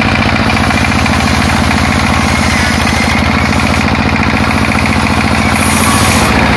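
Stationary engine running at a steady, fast, pounding beat while it turns the flat drive belt and pulley of a circular sawmill. A brief hiss comes near the end.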